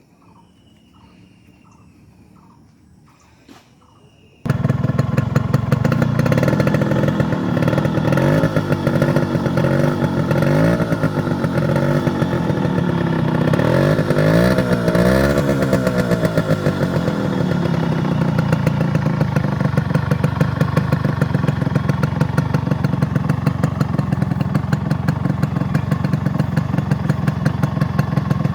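Yamaha RX100's two-stroke single-cylinder engine, coming in suddenly about four seconds in. It is revved up and down several times, then settles into a steady idle with an even rapid popping.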